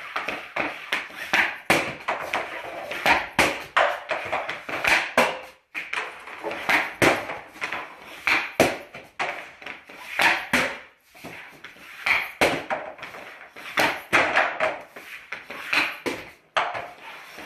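Ice hockey pucks being shot one after another at lit targets on a net: repeated sharp cracks of stick on puck and puck striking target, post and netting, about one or two a second.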